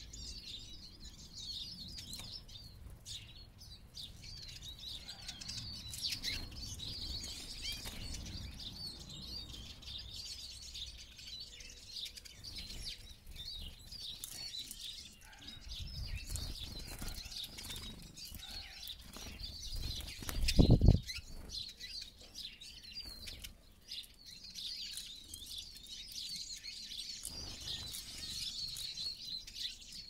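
Eurasian siskins twittering and chattering in a continuous, busy high stream, with wing flutters as birds flap about the seed dishes. About two-thirds of the way through, a brief low thud stands out as the loudest sound.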